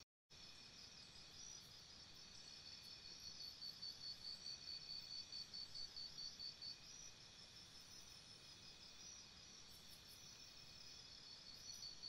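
Insects chirping in a steady chorus of several high pitches, one of them pulsing rhythmically and growing louder a few seconds in before easing off midway. The sound cuts out completely for a moment at the very start.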